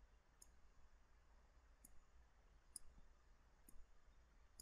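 Near silence broken by faint clicks of a stylus tapping a tablet screen while short pen strokes are drawn, about one a second.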